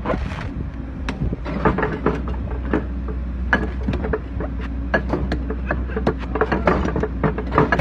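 Tree stump's wood creaking and cracking in many sharp, irregular snaps as a heavy steel splitting wedge on a hydraulic machine is forced down into it, over the steady low hum of the machine's engine.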